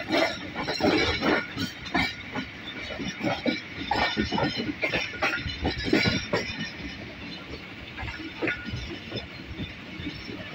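Train running, heard from inside a carriage: an irregular clatter and knocking of the wheels and coach over the track over a steady rumble, easing somewhat after about seven seconds.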